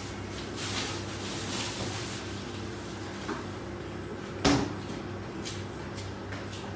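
Kitchen handling sounds: a few light clicks and one sharp knock of something hard being set down or shut, about four and a half seconds in, over a steady low hum.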